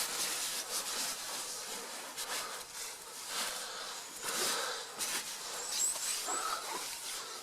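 Rustling and shuffling of tent fabric and bedding as someone shifts about inside a tent, in uneven scrapes and brushes. A few short high chirps come near the end.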